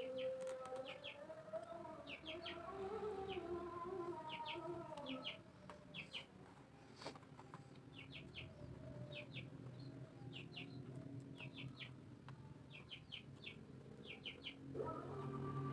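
Small birds chirping in quick runs of two or three high notes, repeating about every second. Soft background music plays under them for the first five seconds and comes back near the end.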